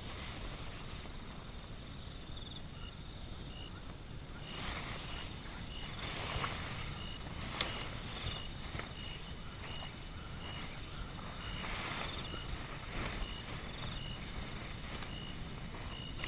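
Steady rain with wind, a low rumble and scattered drips tapping, one sharper tap about halfway through. A faint high chirp repeats evenly about twice a second from a couple of seconds in.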